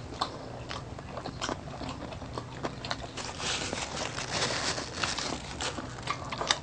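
Close-miked chewing and wet mouth clicks from people eating pork steak and rice with their hands. A paper napkin rustles against a mouth for a couple of seconds in the middle.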